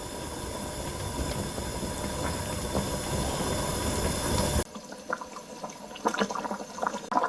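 Pot of pork-backbone and dried-cabbage soup boiling with a steady bubbling hiss, cut off abruptly a little over halfway through; scattered light clicks and clinks follow.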